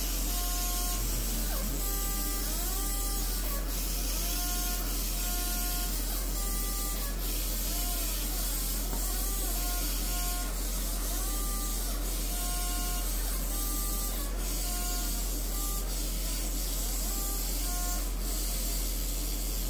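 JPT 50 W fiber laser marking machine running: its galvo scanner whines in short steady tones that hold, swoop and step between several pitches in a repeating pattern, over a steady hiss and a low hum.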